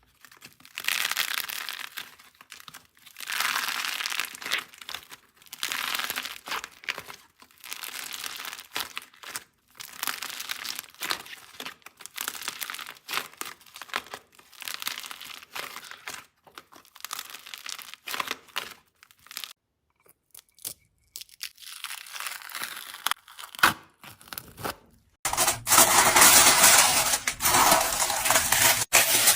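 Slime being squeezed and worked by hand, crackling and popping in repeated bursts about every two seconds. After a quieter pause, a louder, continuous crackle near the end.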